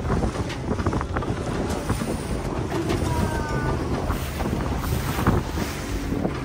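Small motorboat running over the open sea: a steady engine rumble mixed with rushing water and wind buffeting the microphone, with scattered sharp knocks.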